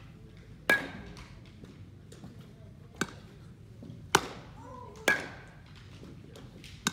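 A baseball being hit and caught during a ground-ball drill: five sharp smacks, one to two seconds apart, and two of them ring briefly.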